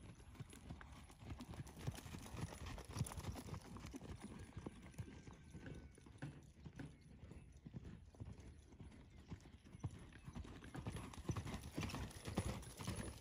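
Hoofbeats of a saddled horse loping on soft dirt arena footing, a steady run of dull thuds that gets louder near the end as the horse passes close.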